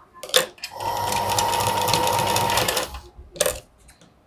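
Straight-stitch sewing machine running steadily for about two seconds, stitching a straight seam through fabric, with a constant tone under the rapid stitching. A couple of clicks come just before it starts, and a quick scissors snip follows near the end.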